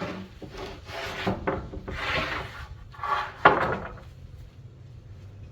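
Wood being scraped in about five or six short strokes, the loudest starting sharply about three and a half seconds in, then the scraping stops.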